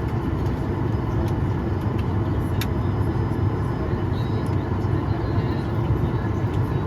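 Steady low rumble of an airliner cabin (Boeing 737 MAX 9) parked before taxi, with a few faint clicks and one sharper click about two and a half seconds in.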